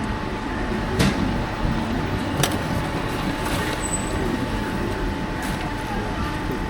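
Steady street background noise with traffic running, and two sharp clicks, about a second and two and a half seconds in.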